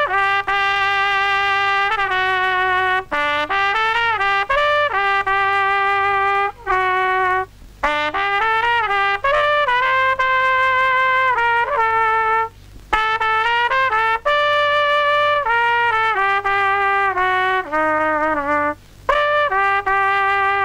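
A lone trumpet playing a slow melody of long held notes, in phrases broken by short pauses for breath.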